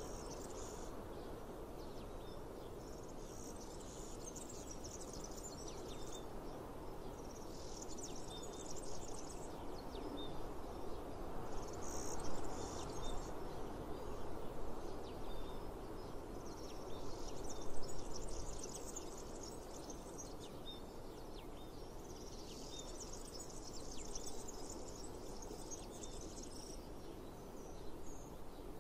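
Meadow insects chirring in high buzzy bursts of a second or two, recurring every few seconds, over a steady background hiss.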